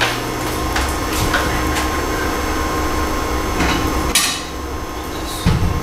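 Kitchen wall cabinet being opened and rummaged: a few scattered knocks and clacks of the door and items inside being handled, the sharpest about four seconds in, over a steady low hum.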